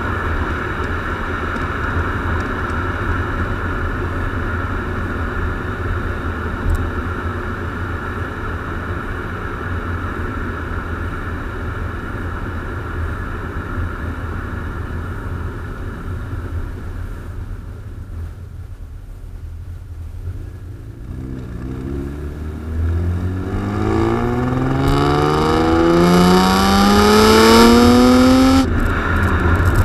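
BMW E36 M3 straight-six exhaust heard at the tailpipes: a steady cruising drone with a low rumble, which eases off about two-thirds of the way in. Then, under hard acceleration, the exhaust note climbs steadily in pitch and loudness for about six seconds before falling sharply at an upshift near the end.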